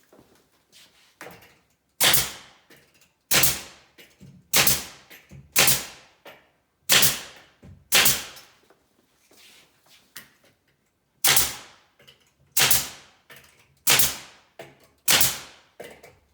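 Nail gun shooting fasteners through a cabinet side panel into the frame: about ten sharp shots roughly a second apart, each followed by a short fading hiss, with a pause of about three seconds midway.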